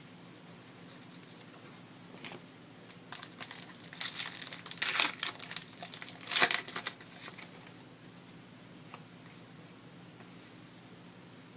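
A trading-card pack wrapper being torn open and crinkled by hand, a run of crackly rustling that starts about three seconds in and is loudest in a sharp burst near the middle.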